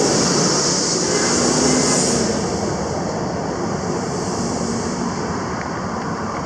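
Steady outdoor background noise: a broad rushing hiss with a strong high-pitched band that swells over the first two seconds, then eases a little and holds.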